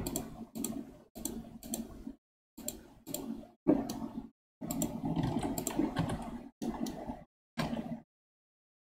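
Computer keyboard keys and mouse buttons clicking in about ten short spells, each spell starting and cutting off abruptly into dead silence.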